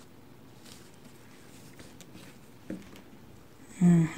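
Faint rustles and light ticks of washi tape and its packaging being handled, then a brief vocal sound near the end.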